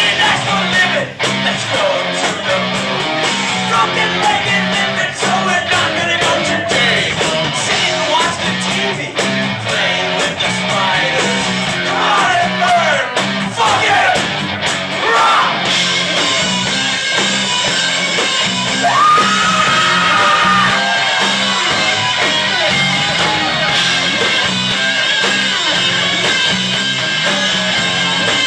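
Live rock band playing loud: electric guitars, bass and drums with a steady pulsing low end, and shouted, sung vocals over the top.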